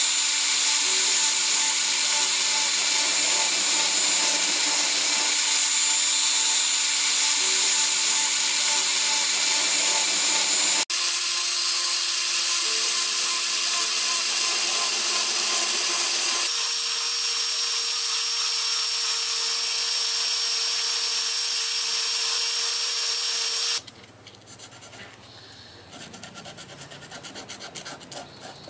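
Handheld rotary tool running at high speed, a steady whine over a hissing grind as its fine bit carves into a brass sword crossguard; the whine's pitch changes abruptly twice. Near the end it stops, giving way to quieter rhythmic scratching of sandpaper rubbed by hand over the brass.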